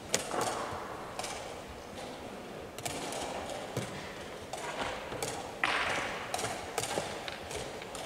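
Scattered sharp clicks and knocks of wooden chess pieces being set down and chess clocks being pressed in a blitz tournament hall, the loudest about a moment after the start, over steady room noise.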